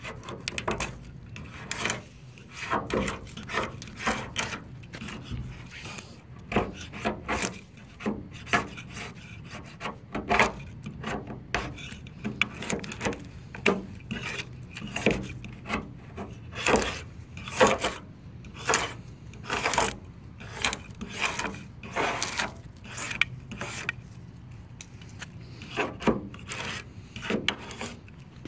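Razor blade scraping paint off the steel body panel of a 1972 Mercury Cougar in quick, uneven strokes, the paint lifting away in strips.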